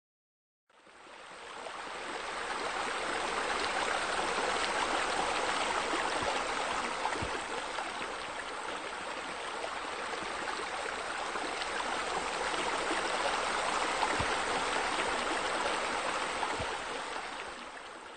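Steady splashing of water spilling from pool water features into the pool, a continuous rushing sound that fades in about a second in and fades out near the end.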